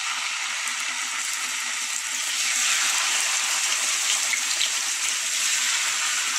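Skewered marinated chicken kebabs sizzling in hot oil in a frying pan, a steady hiss that grows a little louder about two seconds in as more skewers are laid into the pan.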